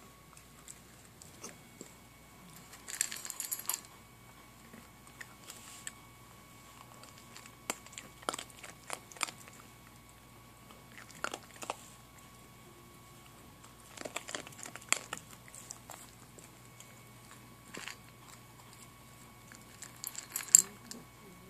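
A small dog crunching dry kibble from a stainless steel bowl, in short bursts of crunching every few seconds with quiet gaps between; the loudest burst comes near the end.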